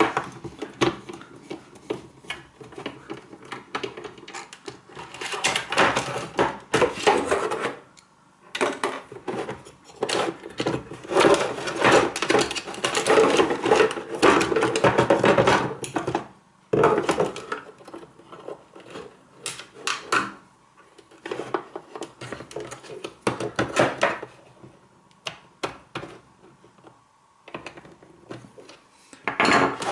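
An electric shower's plastic casing and internal parts being handled and unscrewed with a screwdriver: irregular clicks, rattles and knocks of plastic and metal parts, in busy stretches with short pauses between.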